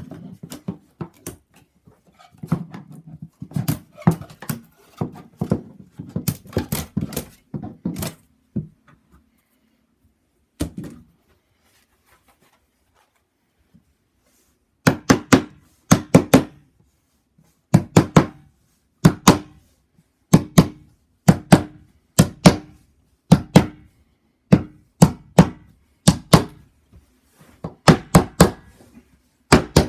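A pry bar and hammer working trim strips off mobile home wall paneling, with irregular knocks and cracks. About fifteen seconds in, a hammer starts setting nails into the wall panel: steady, loud blows, often in quick pairs.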